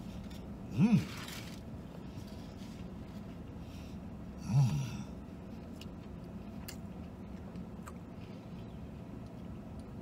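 A man eating a spicy chicken sandwich: chewing with his mouth closed, with two short hummed "mmm" sounds of enjoyment, one about a second in and one about four and a half seconds in. Faint mouth ticks come in between, over a steady low hum.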